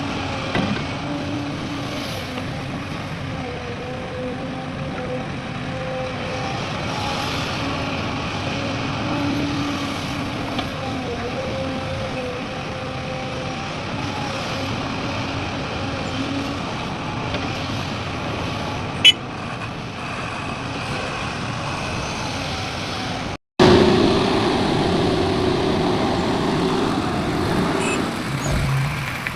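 Heavy diesel engines of an excavator and dump trucks running steadily, their pitch shifting slightly as they work. A sharp click comes about two-thirds in; soon after, the sound cuts out for an instant and returns as a louder stretch of engine noise.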